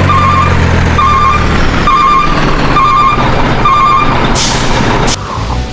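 Truck reversing: a back-up alarm beeping five times, about once a second, over a running engine, then a short air-brake hiss near the end.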